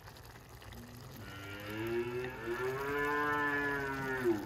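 A cow mooing: one long call that starts about a second in, rises, holds for about three seconds and cuts off sharply.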